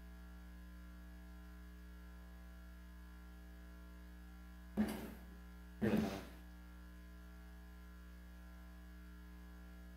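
Steady electrical mains hum and buzz in the room's sound system, with two brief louder sounds about five and six seconds in.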